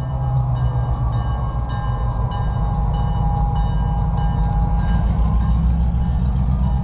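Diesel locomotive's engine running with a heavy low rumble as it approaches, puffing exhaust. Over it, a regular high ring repeats a little under twice a second.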